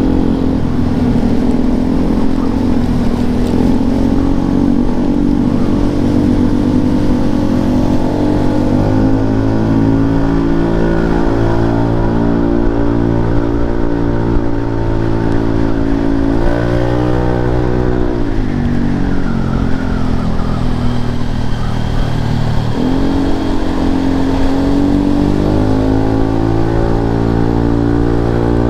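Yamaha Lexi scooter's single-cylinder engine running through an Arrow aftermarket exhaust. Its note rises and falls with the throttle: it climbs about halfway through, drops away sharply soon after, then dips and climbs again near the end.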